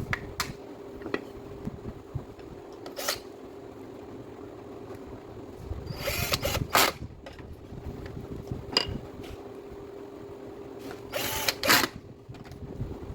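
A power tool running in two short bursts of about a second each, near the middle and near the end, over a steady hum, with scattered clicks from handling.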